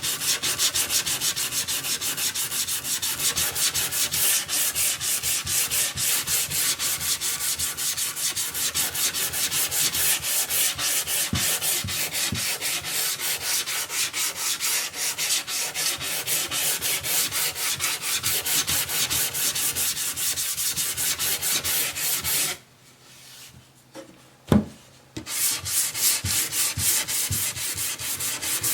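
Sandpaper rubbed back and forth on wood in quick, even strokes. It stops for a couple of seconds near the end, with a single knock in the pause, then starts again.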